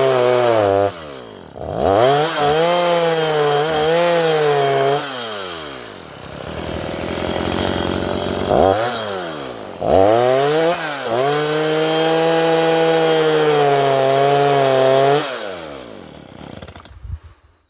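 Stihl MS 162 two-stroke chainsaw ripping a wooden fence post lengthwise, run at high revs in several long pulls with the throttle let off between them. The engine then winds down and stops near the end.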